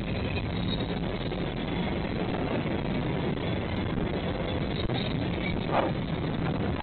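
A train rumbling steadily. A short higher-pitched sound comes in near the end.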